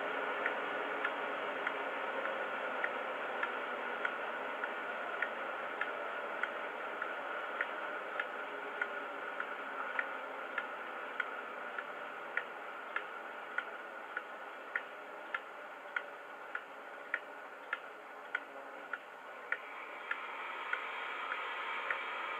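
Model HST power car's DCC sound decoder playing a Paxman VP185 engine sound file through the model's small speaker: a steady whirring hum with a sharp tick repeating a little under twice a second. The hum dips slightly and swells again near the end.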